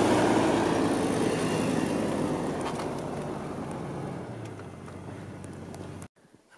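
Old Ford pickup truck's engine idling steadily, growing gradually quieter, then cut off abruptly near the end.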